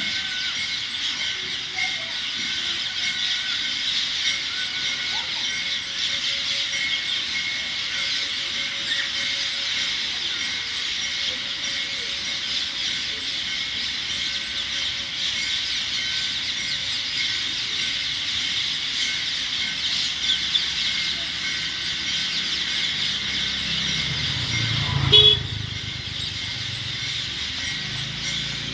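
Dense, steady chorus of many birds chirping as they gather to roost at dusk. There is a sharp knock about 25 seconds in.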